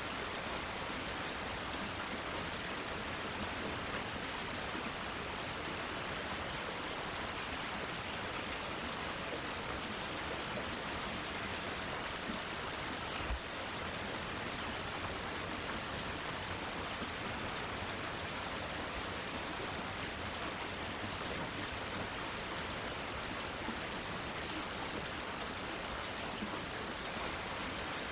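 Steady rain falling on foliage, an even hiss of drops with no let-up, and one brief low thump about halfway through.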